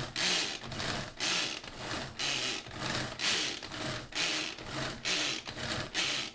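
Manual food chopper worked in quick repeated strokes, its blades whirring in short bursts about twice a second as it minces green chillies and ginger very fine.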